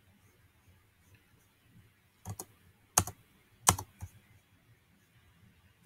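Sharp clicks from computer controls: a quick pair a little over two seconds in, then single clicks near three seconds and just before four seconds, the one just before four seconds the loudest, over faint room hiss.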